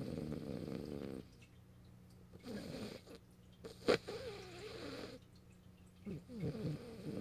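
French bulldog snoring in its sleep: a long snore that stops about a second in, then quieter breaths with a brief sharp click about four seconds in, and the snoring building again near the end.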